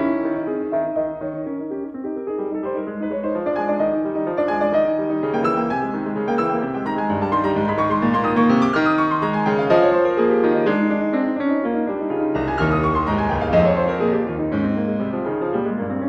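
Background piano music, quick rippling runs of notes that rise and fall.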